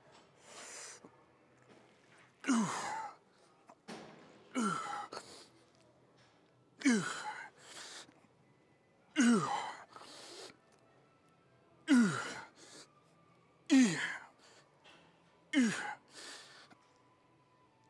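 A man's effortful breathing through a set of pull-ups. About every two seconds he lets out a short grunt that drops in pitch, then takes a quick breath in, seven times over.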